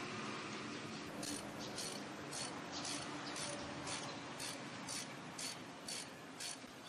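Ratchet wrench with a socket clicking in short, even strokes, about two a second, as a nut is tightened onto the axle flange studs of a truck's rear wheel hub.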